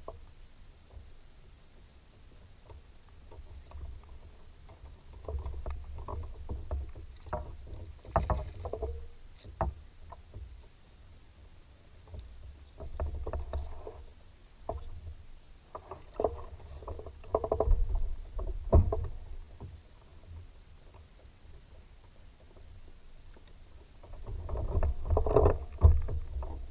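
Kayak being paddled: bouts of paddle strokes in the water with knocks and clicks, separated by quieter pauses.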